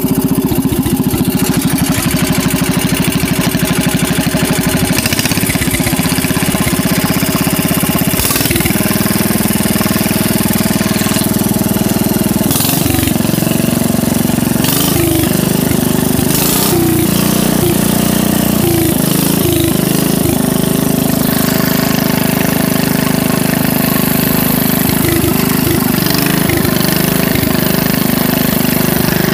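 John Deere 110 garden tractor's single-cylinder engine running steadily through an upright exhaust stack as the tractor is driven. Its note dips and picks back up several times midway through.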